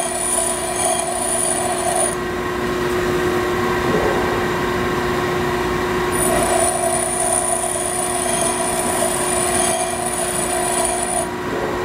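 Pedestal grinder's abrasive wheel grinding a high-speed steel fly-cutter tool bit in two passes: the first stops about two seconds in, the second starts about six seconds in and stops shortly before the end. Between passes the grinder motor and wheel keep running steadily.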